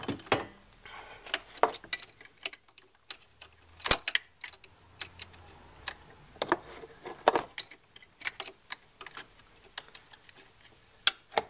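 Wrench clicking and clinking against metal in irregular bursts as a backup-light switch is turned tight into its threaded hole in short strokes. The louder knocks come about four seconds in and near the end.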